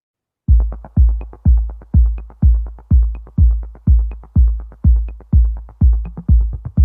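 Electronic dance music with a heavy kick drum on every beat, about two beats a second, and a light high tick between them. It starts suddenly about half a second in after silence.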